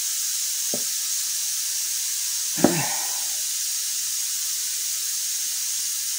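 Compressed air hissing steadily from a hose of the workshop air compressor, punctured where it lay against a bench grinder's wheel. Two light knocks come under a second in and about two and a half seconds in, the second louder.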